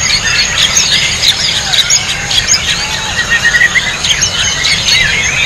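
White-rumped shama singing: fast, varied whistled phrases with quick rising and falling notes, overlapping with a dense chorus of other songbirds.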